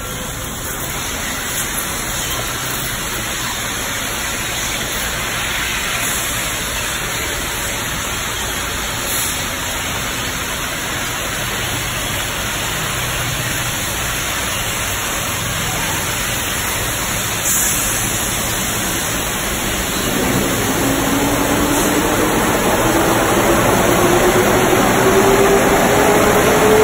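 Water spraying and pouring from the arches of a Belanger tunnel car wash onto a passing car, a steady rushing hiss that grows louder from about twenty seconds in. From that point a machine whine also rises slowly and steadily in pitch.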